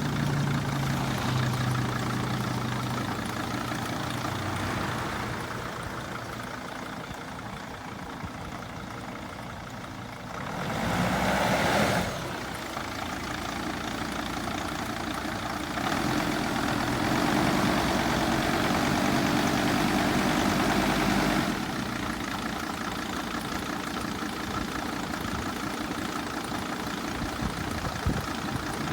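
2006 Sprinter van's engine running at idle, revved briefly about ten seconds in, then held at a higher speed for about five seconds before settling back to idle. The engine is being checked for a knocking sound.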